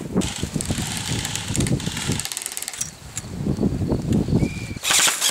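Airsoft electric rifles firing rapid full-auto bursts: a fast mechanical clatter of clicks from the gearbox. The bursts come in two runs, with a louder burst near the end.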